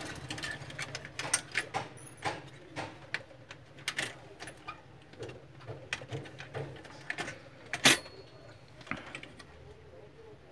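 Irregular clicks and taps of printer parts being handled during reassembly, with one louder knock late on.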